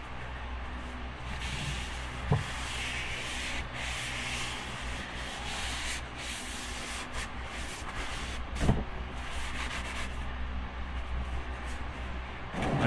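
Rubbing and scuffing handling noises from work under the car during an oil change, with two short knocks, about two seconds and eight and a half seconds in.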